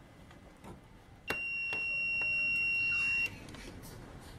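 Multimeter continuity beeper sounding one steady high beep for about two seconds, starting with a click as the probes make contact. It signals a short between the drain and source pins of a motherboard MOSFET.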